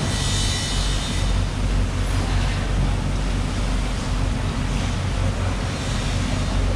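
Steady low mechanical rumble with an even hiss of background noise over it, holding level throughout.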